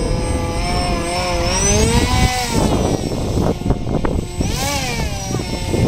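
Electric motor and propeller of an RC F-16 profile parkjet in flight, a whine that rises and falls in pitch as it changes throttle and passes close, with one arching rise-and-fall about four and a half seconds in. A few brief knocks come about three and a half seconds in.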